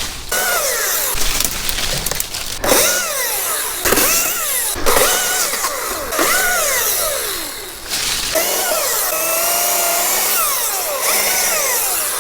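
Chainsaw cutting through holly limbs, its engine revs repeatedly rising and falling as the throttle is worked, over the hiss of the chain in the wood.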